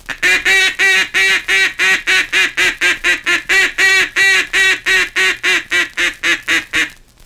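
Duck call blown in the mallard hen's comeback call: a fast, even run of about thirty quacks, roughly four a second, that stops abruptly near the end. It is the call used to turn back mallards that are flying away.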